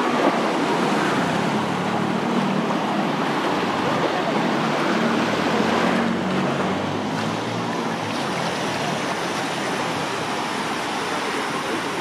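Small surf breaking and washing up the sand at the water's edge, a steady wash of noise, with the general chatter of a crowded beach behind it.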